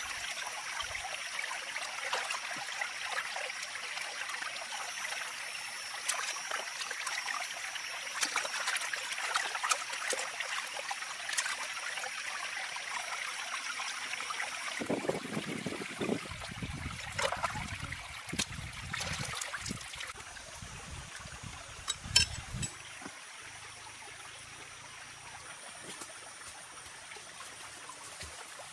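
Shallow stream water trickling and splashing as raw squid are rinsed by hand in the current. Past the middle the water grows quieter, and a few low knocks and handling noises come through, with one sharp click.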